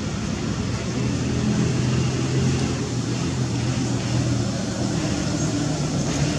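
Steady low hum of a running motor vehicle engine under a broad hiss, swelling slightly in the middle.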